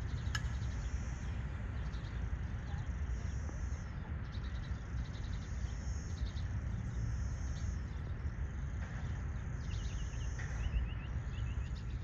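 Outdoor ambience: a steady low rumble under insects chirping in high-pitched spells that come and go every second or two, with a quick run of short chirps near the end.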